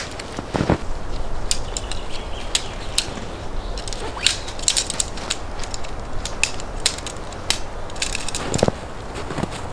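A dome tent being taken down in snow: its nylon fabric and folding poles crinkle and click irregularly. Boots crunch in snow a couple of times, about half a second in and near the end.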